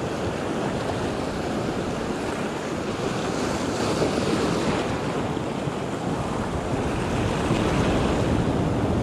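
Sea surf washing and foaming around rocks just below, with wind buffeting the microphone.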